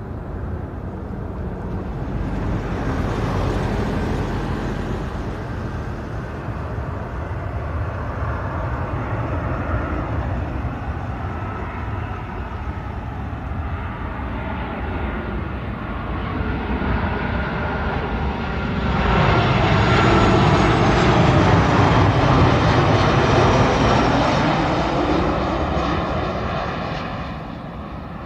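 Jet airliner on final approach to land, a steady engine roar with a high whine in it. It grows louder about two-thirds of the way in as the plane comes close, then falls away near the end.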